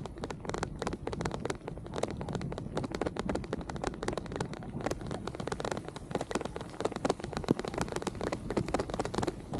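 Rain during a night bicycle ride: a dense, irregular patter of raindrops striking close to the microphone, over a steady low rumble.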